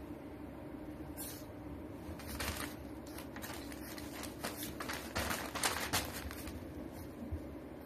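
French bulldog puppy scrabbling about on carpet and newspaper, its paws scratching and the paper rustling in a few short bursts, busiest and loudest about five to six seconds in, over a steady low hum.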